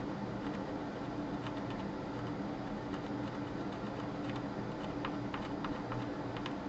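Small screwdriver tip scraping the coating off a circuit board's copper traces: irregular light scratches and clicks, coming quicker in the last couple of seconds, over a steady low hum.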